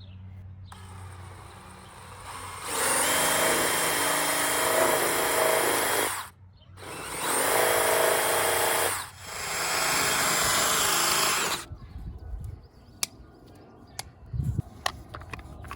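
Power tool spinning a cutter inside a PVC drain pipe, cutting the pipe down from the inside in three loud runs of a few seconds each with short pauses between. Scattered light clicks and knocks follow once it stops.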